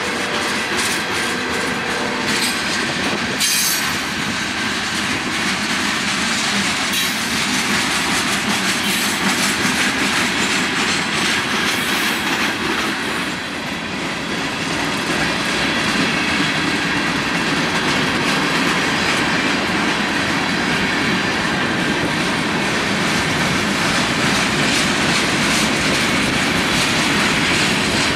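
Freight cars rolling past close by, steel wheels clattering steadily over the rail joints.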